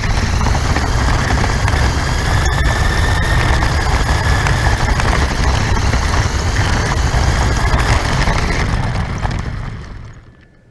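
RC car driving, heard from a camera mounted on the car: a loud low rumble and rattle with a steady motor whine, fading away near the end as the car slows.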